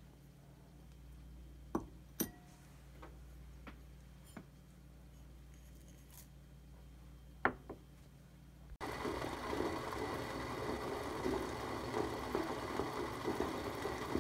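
A few light clicks and clinks from ingredients and utensils at a stainless saucepan, then, after a sudden change about two-thirds of the way in, the dark pickling liquid for the daikon boiling in the pan: a loud, steady bubbling.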